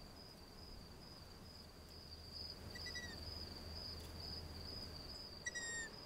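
Two short, high, slightly falling squeaky calls from long-eared owl chicks, about three seconds in and near the end: hungry chicks begging for food. Under them runs a faint, steady high insect trill.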